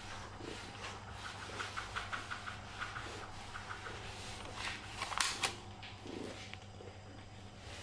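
A grooming brush stroking through a cat's fur in short, repeated scratchy strokes, about two or three a second, with a louder stroke about five seconds in, over a steady low hum.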